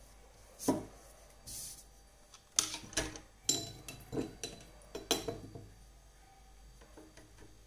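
Clatter of small hard objects being handled and set down on a surface: a knock about a second in, a brief rustle, then a run of knocks and clinks lasting about three seconds.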